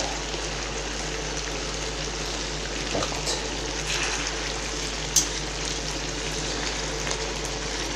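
Wild mallard pieces in a mayonnaise and tomato-paste sauce sizzling and bubbling steadily in a frying pan over a high gas flame, the sauce boiling down. A short sharp knock about five seconds in.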